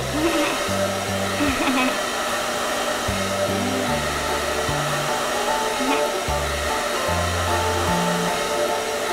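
Hair dryer blowing steadily, over background music with a stepping bass line.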